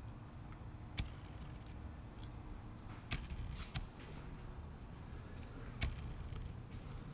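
Workshop background: a steady low hum with four sharp knocks spread through it, two of them followed by a brief high rattle.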